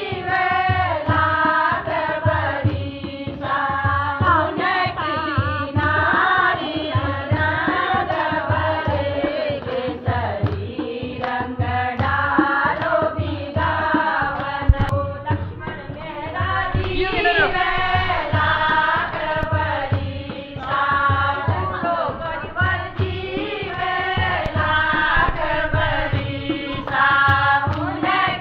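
Group of women singing a Kumaoni Holi blessing song (ashirwad geet) together, over a steady low beat.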